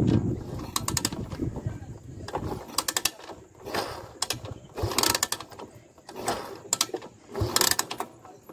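Motorcycle kick-starter kicked over again and again, about six times, with the kick gear ratcheting and the engine turning over without starting. This is done with the oil drained, to push the last old oil out of the engine.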